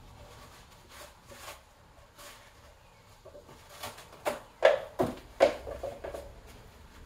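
Sharp metal clicks and clacks of engine main bearing shells being pulled out and handled. A few light ones come first, then a quicker run of louder ones about four to six seconds in.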